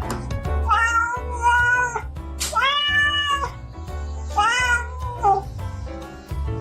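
A cat meowing three times, each meow drawn out for about a second, over background music with a steady bass line.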